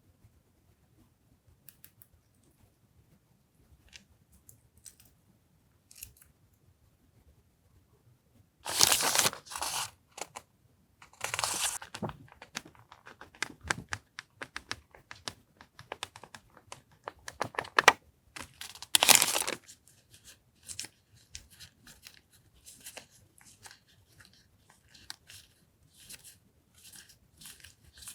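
Paper and plastic stationery packaging being handled and torn open. After a few faint taps there are loud rustling, tearing strokes about nine and eleven seconds in and again a little before twenty seconds, then many short crinkles and taps.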